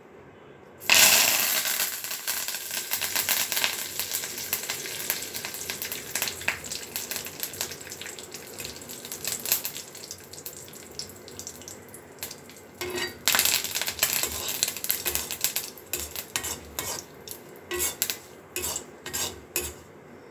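Chopped onions, tomatoes and curry leaves dropped into hot oil in a clay pot, sizzling loudly as they hit, with a fresh loud surge of sizzling about two-thirds of the way through. Near the end, a wooden spatula scrapes and knocks against the clay as the vegetables are pushed in and stirred.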